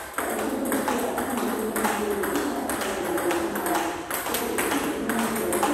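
Table tennis rally: the ball clicking off the rackets, one of them faced with pimpled rubber, and bouncing on the table, two or three sharp hits a second.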